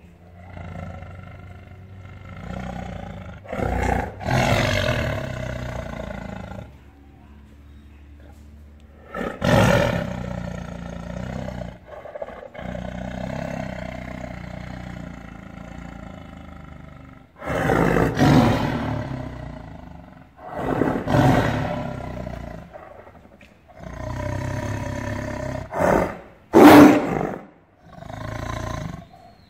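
A caged tiger snarling and roaring angrily at close range. There are repeated loud, separate roars with quieter rumbling between them, and the loudest comes near the end.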